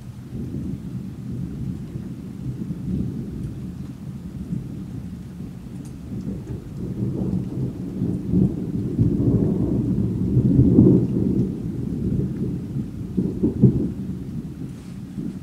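Thunder rumbling and rolling in long waves, building to its loudest about two-thirds of the way through, with a sharper clap near the end. Rain falls underneath.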